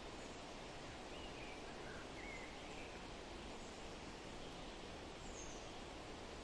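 Steady outdoor background noise with a few faint bird chirps between about one and three seconds in, and one higher chirp near the end.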